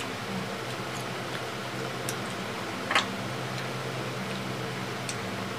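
A few light clicks and taps of people eating at a table, the clearest about three seconds in, over a steady mechanical hum.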